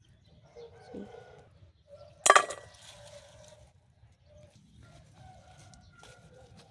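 Handful of freshly picked green beans dropped into a stainless steel bowl: one sharp clatter with a brief metallic ring about two seconds in. Chickens cluck faintly in the background.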